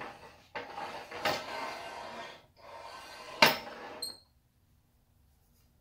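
Cast-iron mini lathe tailstock pushed along the metal bed rails, scraping and rubbing in two strokes, with one sharp metallic clunk about three and a half seconds in and a brief ring after it. It goes quiet after about four seconds.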